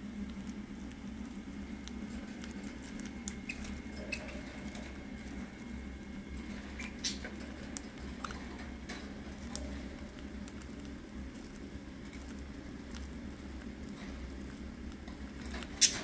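Budgerigars pecking and nibbling at food: small, irregular clicks and rustles over a low steady hum, with one sharper click just before the end.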